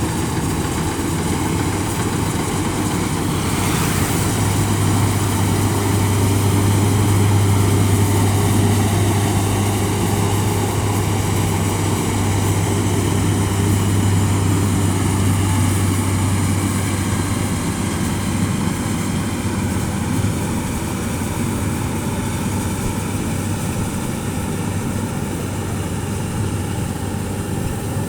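Rice combine harvester's engine running steadily with a low drone, a little louder in the first third, then easing slightly.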